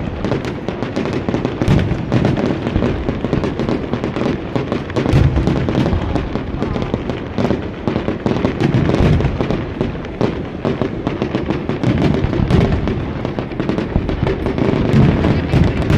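Fireworks display: dense, continuous crackling and popping of bursting shells, with deep booms every few seconds.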